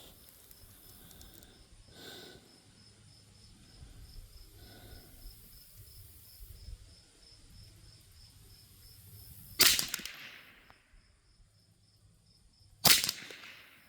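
Two shots from a Mendoza Puma .22 LR rifle firing CCI Standard rounds, about three seconds apart near the end, each a sharp crack with a short ringing tail.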